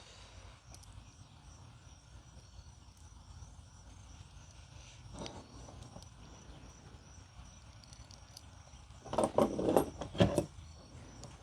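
Crickets chirping steadily in the background, a faint even high-pitched pulsing. A short flurry of clicks and knocks comes about nine seconds in and is the loudest sound. A lighter click comes about five seconds in.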